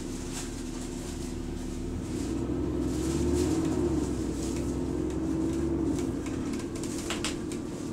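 Double-decker bus's engine cooling fan whining along with the drone of the bus in motion, heard from inside the bus. The hum swells and rises a little in pitch about two seconds in, then eases off after about six seconds.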